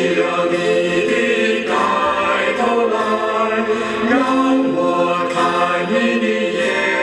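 Dance music with singing voices holding long notes that slide from one pitch to the next.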